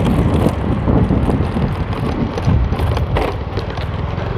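Wind buffeting a phone's microphone outdoors: a rumbling, gusting noise.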